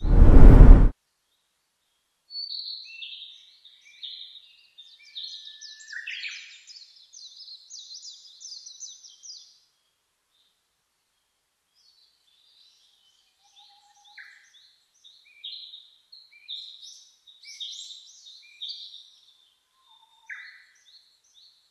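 Birds singing, many quick high chirps and twittering phrases in two stretches with a pause of a few seconds between them. It opens with a loud, short burst of noise lasting under a second.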